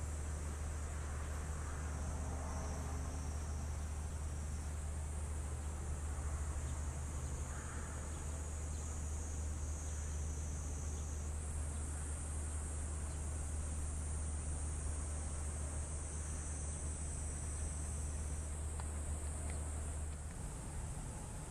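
A steady, high-pitched chorus of summer insects, over a steady low hum that fades out near the end.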